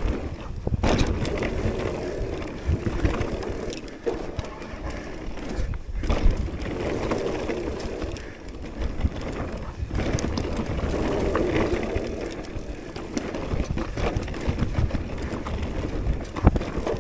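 Electric mountain bike ridden fast down a rough trail: wind buffeting the microphone, with tyre noise and a run of knocks and rattles from the bike over the ground.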